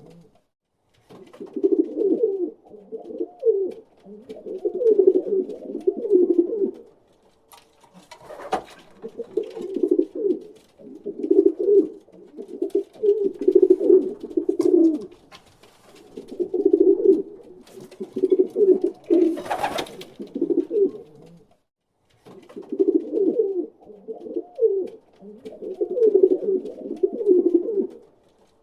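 Pigeon cooing: low cooing phrases repeated in bouts of a few seconds with short pauses between. Two brief noisy scuffs come through, about eight and nineteen seconds in.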